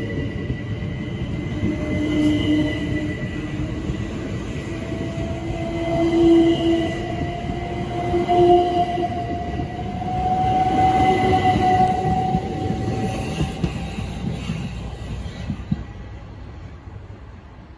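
Gatwick Express Class 387 electric multiple unit pulling slowly away along the platform, its traction motor whine rising steadily in pitch as it gathers speed over the wheel and rail rumble. It fades away near the end.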